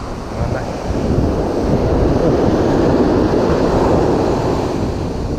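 Ocean surf breaking and washing up the beach, swelling about a second in and easing near the end, with wind buffeting the microphone.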